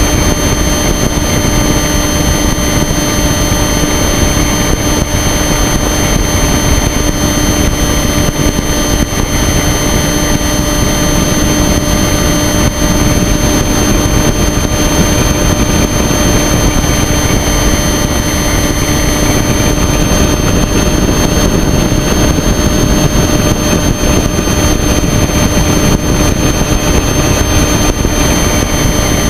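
Motor and propeller of a small aircraft running at steady power, heard from the camera on board, with wind rushing over the microphone; a steady whine sits on top of the noise throughout.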